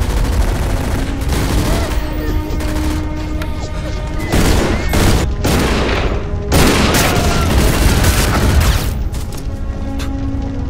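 Film battle soundtrack: rapid gunfire and booming blasts over dramatic music, with loud bursts around the middle.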